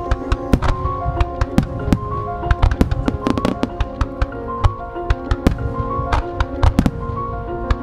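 Music with a fireworks display bursting over it: many sharp firework reports, several a second, cracking through sustained musical notes.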